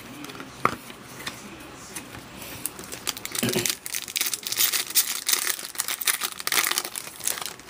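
Foil trading-card pack wrapper being torn open and crinkled by hand. The crackling starts about three seconds in and runs until near the end, after a few light clicks.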